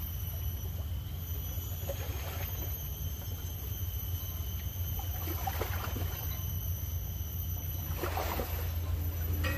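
Steady low outdoor rumble, with faint brief rustling about five and a half and eight seconds in as the fishing rod, line and bait are handled.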